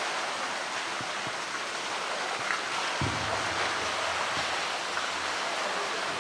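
Steady rush of flowing water in a polar bear enclosure, with a faint low hum coming in about halfway.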